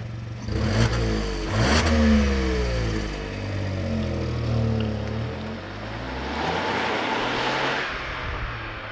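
Volkswagen up! TSI's three-cylinder turbo petrol engine heard through its stock exhaust: revved up from idle a few times, then accelerating away.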